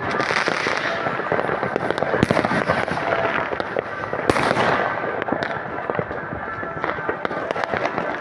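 Many fireworks and firecrackers going off at once: a continuous dense crackling and popping of bangs, with a louder bang about four seconds in.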